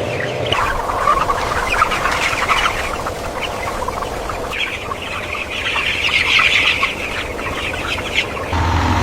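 A flock of broiler chickens clucking and cheeping, many short overlapping calls. About eight and a half seconds in, the calls stop and a steady low hum takes over.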